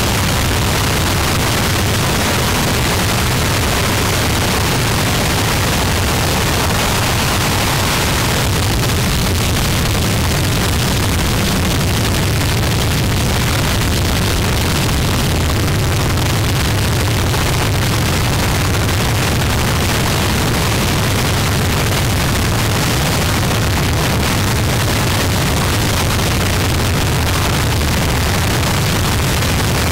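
Harsh noise music: a dense, unbroken wall of distorted noise at a constant loudness, heaviest in a deep low rumble.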